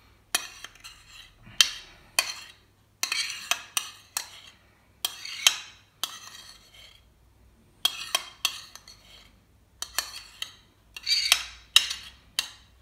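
Metal spoon scraping thick tartar sauce off a tipped square plate into a small glass bowl: a run of short scrapes and clinks, in groups with short pauses between.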